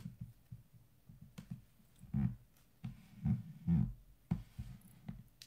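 Typing on a computer keyboard: irregular runs of soft keystrokes and clicks, with a few louder taps in the middle.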